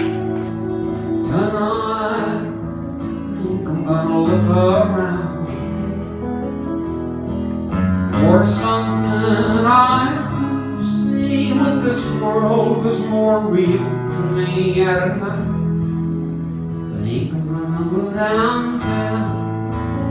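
Live acoustic country-folk band: strummed acoustic guitars over a steady bass, with men singing in phrases that come and go every few seconds.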